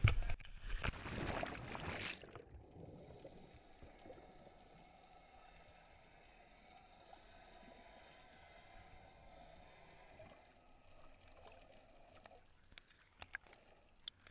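Water splashing around a waterproof action camera as it goes under, the sound turning abruptly muffled about two seconds in. A faint, dull underwater hush follows, broken by sharp splashes near the end as the camera breaks the surface beside a boat's swim ladder.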